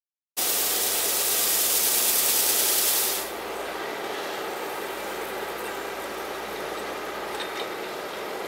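Road-rail excavator with a rotating brush sweeping snow from railway switches: a steady engine hum under the hiss of the brush and blown snow. The sound starts abruptly just under half a second in, with a loud high hiss for about three seconds before it drops to a lower steady level.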